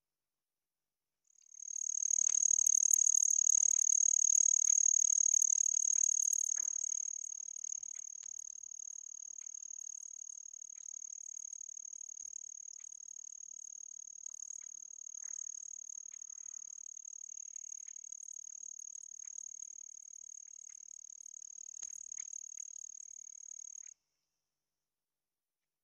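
Insects trilling in a steady, high-pitched drone. It sets in about a second in, is loudest for the first few seconds, then goes on more quietly until it cuts off abruptly near the end.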